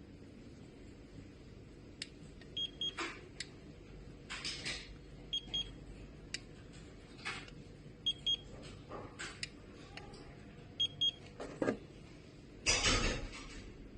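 Handheld infrared thermometer beeping as it takes readings: a short high double beep about every three seconds, four times in all. Between the beeps come clicks and rustles of handling, with a louder rustle near the end.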